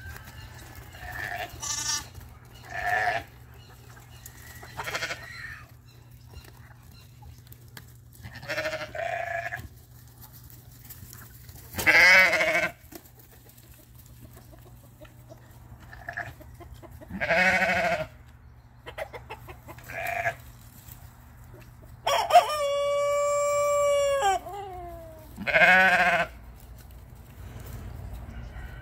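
Sheep bleating again and again in short, quavering calls, from a flock that the owner found acting strangely shortly before a small earthquake. A rooster crows once, a long steady call that falls away at the end, about three-quarters of the way through.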